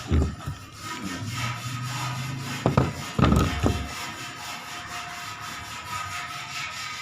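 Handling noise: a few knocks and some rubbing, with a faint steady hum behind them.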